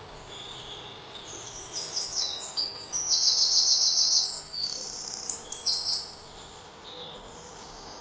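A songbird singing a run of high, rapid chirps and trills, loudest about three to four seconds in, over a faint steady chorus of insects.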